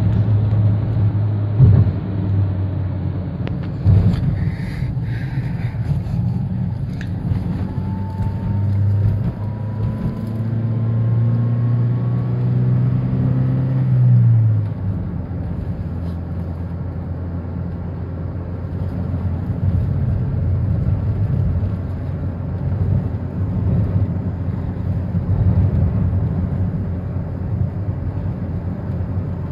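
Vehicle engine and road noise heard from inside the cabin while driving. The engine note climbs as it accelerates, then drops off suddenly about fourteen seconds in, with a couple of knocks in the first few seconds.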